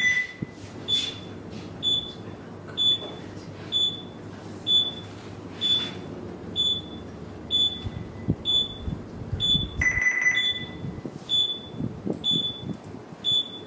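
Bridge console alarm in a ship's bridge simulator, sounding a short high beep about once a second. A longer, lower tone sounds at the start and again about ten seconds in, over a steady low hum.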